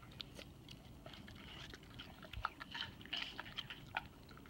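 A dog chewing watermelon: a faint, irregular run of small wet crunches and clicks.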